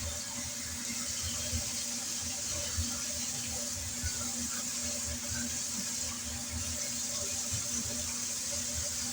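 Tap water running steadily into a sink as a soapy sponge is rinsed. Under it runs a steady electrical hum from a fluorescent light.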